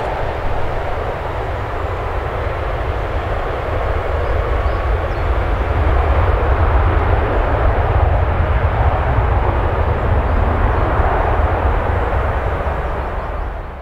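Airbus A380 jet engines giving a steady deep rumble and roar as the airliner rolls out along the runway after landing. The noise swells slightly midway and fades away at the very end.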